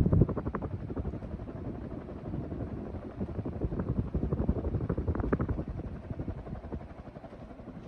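A Hampton Bay Montgomery II 44-inch ceiling fan is running on high speed, its blades whooshing through the air in rapid, uneven pulses. The sound is loudest at the very start.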